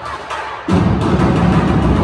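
Percussion-heavy music with sharp, evenly spaced hits and deep bass; the bass thins out for the first half-second, then comes back loudly.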